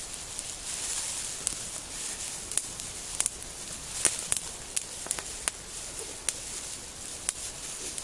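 Wood campfire crackling with irregular sharp pops, over the rustle of a plastic bag being handled and tied.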